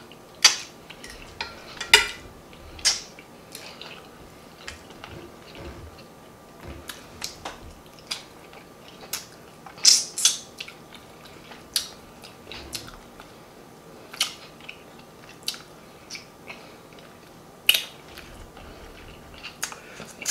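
Close-miked mouth smacking and chewing while gnawing meat off a smothered turkey wing held in the hands: sharp, irregular wet smacks, the loudest about two seconds in, about ten seconds in, and near the end.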